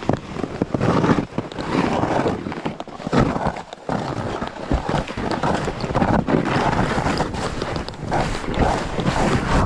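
Snowboard sliding and scraping down snow, with wind rushing over the microphone; an uneven, rising and falling noise with a few sharp scrapes.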